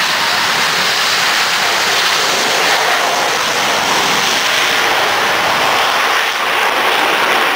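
Jet engines of an airshow jet truck running, a loud steady rushing noise with no breaks.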